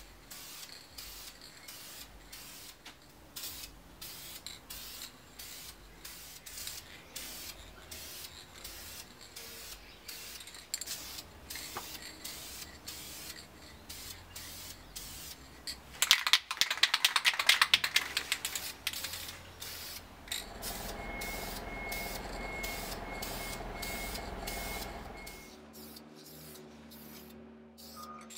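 Aerosol spray-paint can applying colour coat: repeated short hisses of spray, then the can's mixing ball rattling fast and loud as it is shaken, then a long steady hiss of paint being sprayed.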